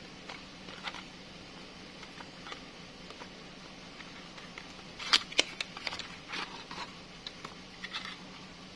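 A few light clicks and taps, the sharpest pair about five seconds in, over a faint steady hiss and low hum.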